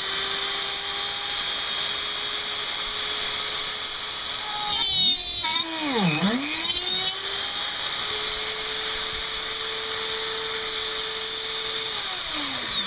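Dremel 3000 rotary tool running at high speed in a drill-press stand, a steady high whine. About five seconds in, its pitch sags sharply and recovers as the bit is pressed into the workpiece to cut a hole, and near the end it winds down as it is switched off.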